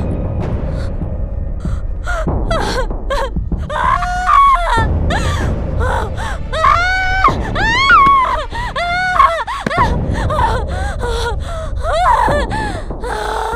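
A woman crying out in distress, with gasping, high wailing cries whose pitch arches up and down, one after another.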